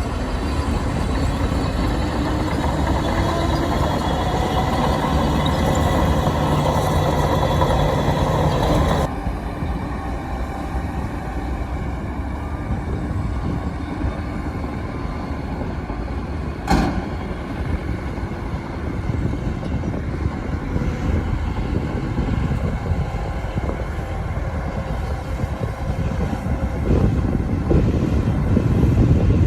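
Heavy diesel engines of construction machinery (bulldozer and dump truck) running and working. The sound changes abruptly about nine seconds in, there is a single sharp knock past the middle, and the engine grows louder near the end.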